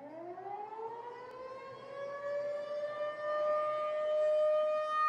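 Air-raid siren sound effect over the hall's speakers, winding up in pitch over the first three seconds or so, then holding a steady wail and growing louder.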